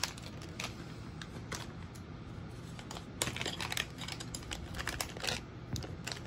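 Scattered light clicks and taps of small plastic kit parts being handled on a desk, bunched more thickly about three and five seconds in.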